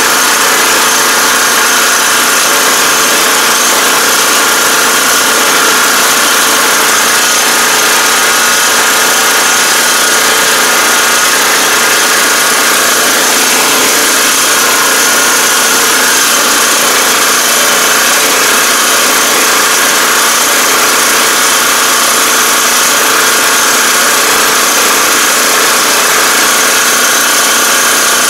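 A 2021 Iseki five-row riding rice transplanter running at work, its engine and planting mechanism heard close up, loud and steady throughout.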